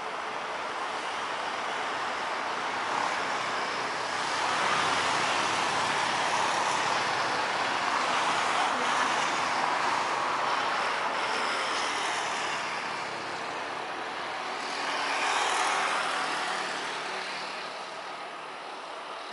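Jet engines of an Airbus A330-900 (Rolls-Royce Trent 7000) running as the airliner taxis on the runway: a steady rushing hiss with a faint whine that swells and fades, loudest from about four to eleven seconds in and again around fifteen seconds.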